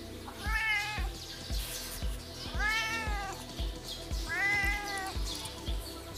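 Ginger tabby cat meowing three times, each call rising and then falling in pitch and lasting about half a second to a second, with a fourth meow starting at the very end.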